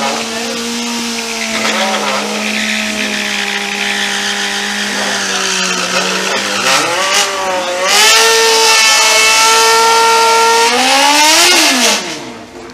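Motorcycle engine held at high, steady revs for several seconds, then revved higher and louder about eight seconds in, with hissing tyre noise, before the revs drop away near the end: a burnout at the start line that sends up tyre smoke.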